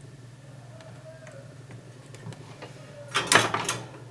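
Small ticks and clicks from removing a ceramic capacitor from a circuit board and handling its wire leads, with a cluster of louder sharp clicks about three seconds in, over a low steady hum.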